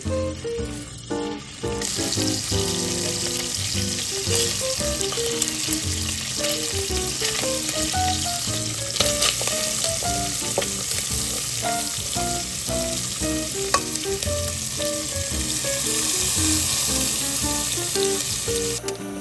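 Food sizzling as it fries in a pan. The hiss starts about two seconds in, goes on steadily and cuts off just before the end, with a few sharp clicks along the way.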